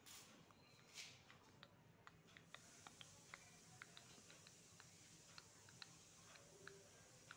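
Faint, scattered light clicks and taps of small pieces of modelling clay and fingers on a tabletop as the pieces are picked up and handled, over near silence, with a brief soft swish about a second in.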